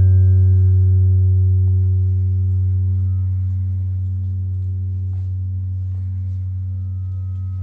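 A steady low humming tone with overtones, slowly fading, with a few faint ticks partway through.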